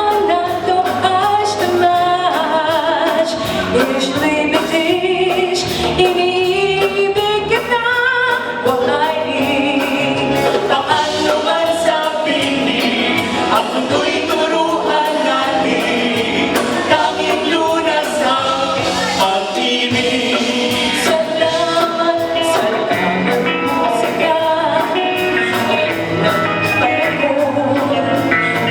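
A choir singing, with several voice parts moving together in sustained, gliding lines.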